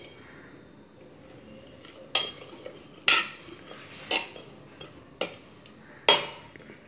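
A metal ladle knocks against the side of a pressure cooker while stirring vegetables into cooked dal. There are five sharp clanks about a second apart, starting about two seconds in.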